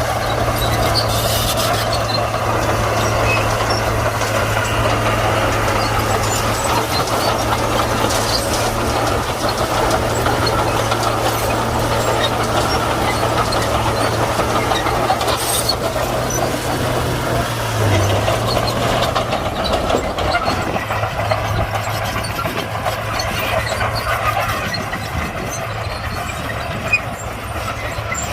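Komatsu D41P crawler bulldozer's diesel engine running steadily with a constant low hum as the machine works.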